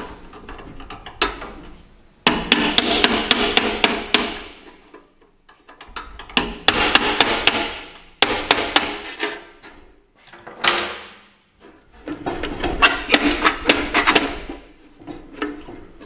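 Runs of quick hammer taps, about five a second, with short pauses between runs. The hammer is tapping through a hole drilled in an Attwood RV furnace's sheet-metal case to drive out the blower motor, whose shaft is rusted and stuck in the blower wheel.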